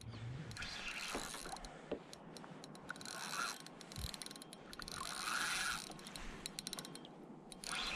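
Spinning fishing reel being cranked in three short spells with scattered clicks, winding in line against a hooked fish.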